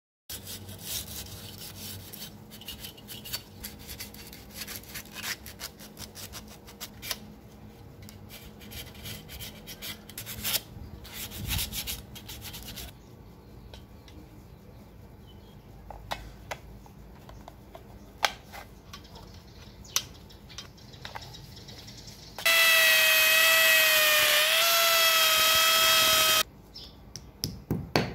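Scattered light clicks and knocks from handling, then an electric drill runs loud and steady for about four seconds, its whine dipping slightly in pitch midway before it cuts off sharply.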